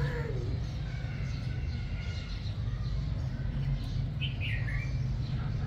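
Young chicken peeping a few times, short falling high-pitched chirps, one near the start and another about four seconds in, over a steady low rumble.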